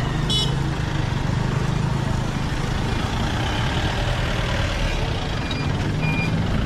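A large vehicle's engine running at idle with a steady low rumble. Near the end a vehicle's reversing beeper starts, sounding short high beeps a little under twice a second.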